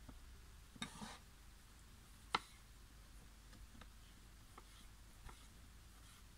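Knife cutting vegetables on a wooden cutting board: a few faint, sparse taps of the blade on the board, the sharpest about two seconds in.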